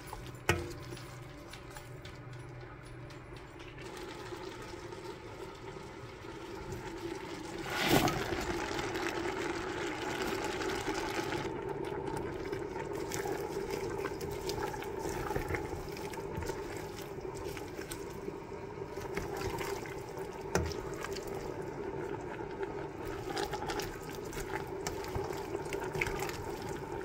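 Vegetables cooking in liquid in a pot: a steady bubbling and sizzling hiss that grows louder about eight seconds in. A single sharp knock comes at about the same moment.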